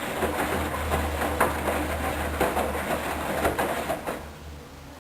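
Hoover Dynamic washing machine in the main wash of its duvet programme: the drum turning a wet duvet, water sloshing and clattering over a low motor hum. The sound dies down about four seconds in.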